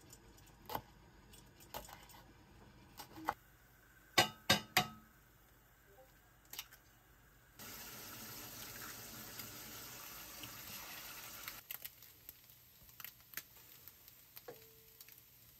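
A knife slicing cheongyang green chilies on a bamboo cutting board: separate sharp cuts a second or so apart, with a quick run of three about four seconds in. About halfway through, this gives way to eggs frying in oil on a flat griddle pan: a steady sizzle that drops away after about four seconds, leaving a few light taps.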